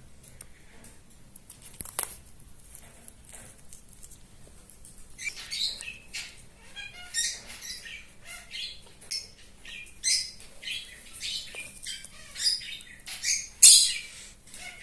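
Pet parrot chirping, a quick run of short, high calls that starts about five seconds in and grows louder near the end, after a single sharp click about two seconds in.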